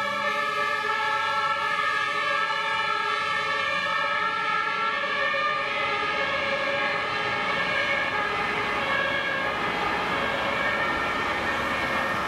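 Sirens of fire brigade emergency vehicles sounding continuously as they drive off, several steady tones heard at once.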